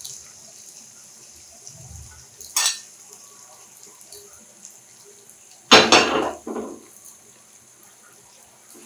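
Kitchen utensils clinking and knocking against cookware: a light click about two and a half seconds in, then a louder clatter about six seconds in, with a smaller knock just after it.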